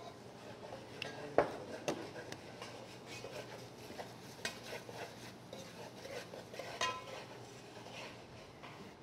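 Wooden spatula stirring and scraping ground spices toasting in oil in a granite-coated pot, with scattered light knocks against the pot, the loudest about one and a half seconds in.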